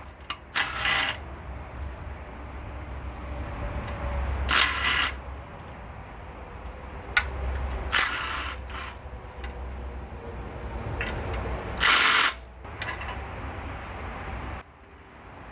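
Ratchet wrench clicking in four short runs of about half a second each, as bolts on the oil pickup and baffle plate of an engine block are turned out. A low steady hum and light handling noise run underneath.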